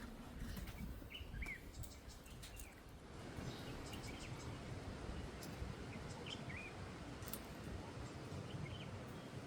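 Faint outdoor background noise with a few short, scattered bird chirps.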